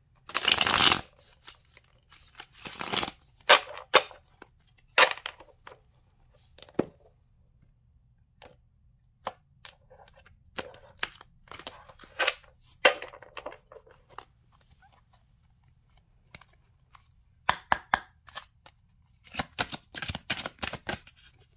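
Tarot cards handled on a tabletop: a short burst of shuffling at the start, then cards set down, slid and tapped, giving scattered snaps and taps, with a quick run of taps near the end.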